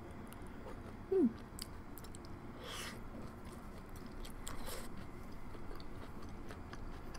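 Close-up chewing of a mouthful of Korean corn cheese, soft sweet corn in melted cheese, with faint wet mouth clicks and a couple of smacks. A short falling 'mm' comes about a second in.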